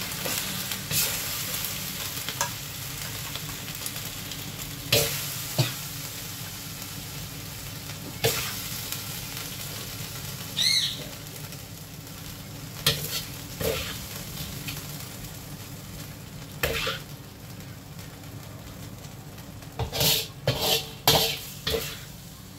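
Metal wok spatula scraping and knocking against the wok as sauced pork ribs and vegetables are scooped out, over a steady sizzle from the hot pan. The strokes come every few seconds, with a quick run of scrapes near the end.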